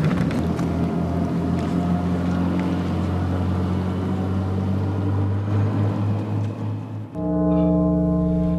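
Motorboat engine running steadily under the rush of wind and water. About seven seconds in, this gives way to a single held note of music.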